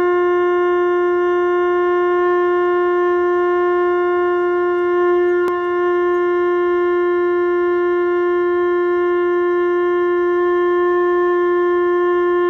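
Conch shell (shankha) blown in one long, steady note, bright with overtones.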